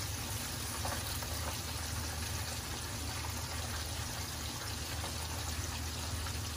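Breaded chicken deep-frying in hot oil, a steady, even sizzle, with a low steady hum underneath.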